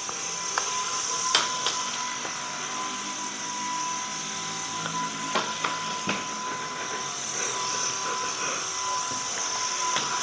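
Flying spinner toy's small propeller motor whirring with a steady whine as it flies about out of control, with a few sharp knocks as it bumps into things.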